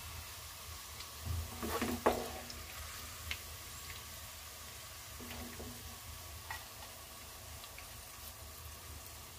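Sliced onions, fried to brown, sizzling in hot oil in a wok, a steady hiss, with a wooden spatula scraping and stirring through them; the scraping is loudest about two seconds in, with a couple of single knocks later.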